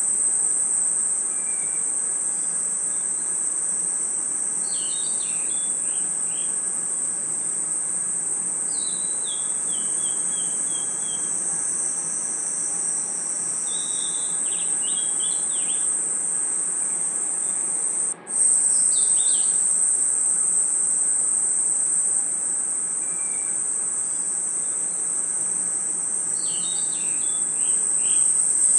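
Night chorus of crickets and other insects: a steady, high-pitched trill, with short runs of falling chirps every few seconds. The whole sound cuts out for an instant about two-thirds of the way through.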